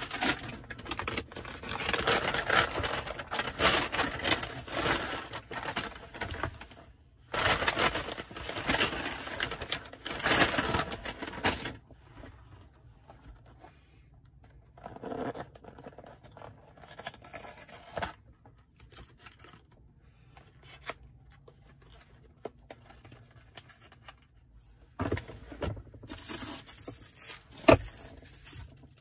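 Paper and cardboard takeout packaging rustling and crinkling as it is handled and opened. It is loudest in two long stretches over the first twelve seconds, then comes as quieter, scattered handling sounds, loud again briefly near the end, with one sharp tap shortly before the end.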